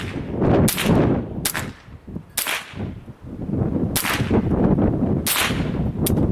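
Ruger 10/22 semi-automatic rifle fired repeatedly: six sharp shots at uneven intervals of about one to one and a half seconds, each with a short ringing tail.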